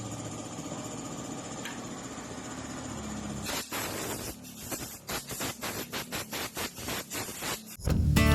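A small motor running steadily, then a quick series of sharp mechanical clicks, about three a second. Acoustic guitar music comes in near the end.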